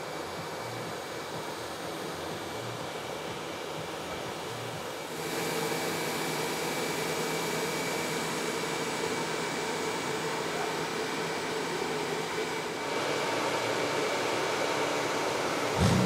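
Steady mechanical whirring hum with hiss, like machinery or fans running. It steps up in level twice, with a brief low thump near the end.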